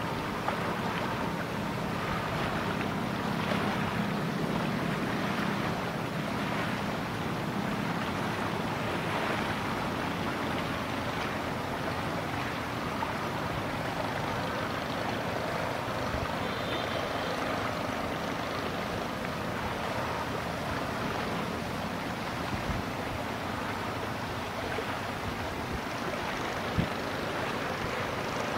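Steady river ambience of wind and water, with a faint low boat-engine hum that is strongest in the first few seconds. A single short knock comes near the end.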